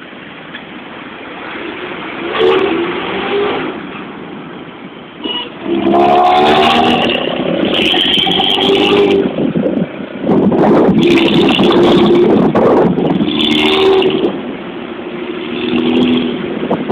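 Bus telolet horn sounding its multi-note tune again and again in bursts, from about two seconds in, over engine and road noise.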